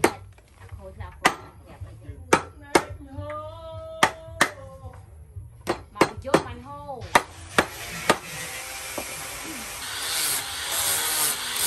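Sharp chopping strikes of a hand-held blade on a wooden board, about a dozen at an irregular pace of one or two a second. About eight seconds in, an angle grinder with a sanding disc starts up, and its steady noise grows louder near the end as it sands the curved board.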